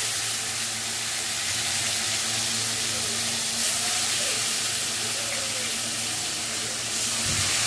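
Pieces of turmeric-and-salt-rubbed parshe (mullet) frying in hot oil in an aluminium kadai: a steady sizzling hiss just after the fish has gone into the oil.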